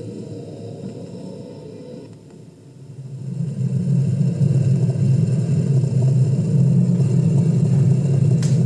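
MiniBox spirit-box app playing a low droning rumble, quiet at first, then swelling about three seconds in and holding steady.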